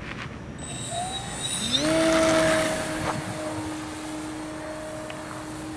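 Homemade RC plane's electric motor and propeller spinning up with a rising whine, loudest for a moment as the plane takes off, then a steady drone as it climbs away.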